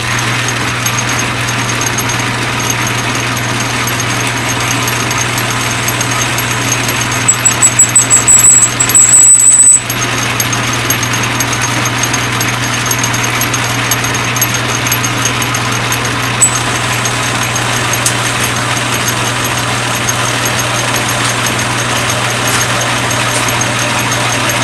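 Atlas metal lathe running under power feed while taking a 50-thousandths cut, a steady motor hum with cutting noise. About seven seconds in, a loud high squeal comes in quick pulses for a couple of seconds, then stops.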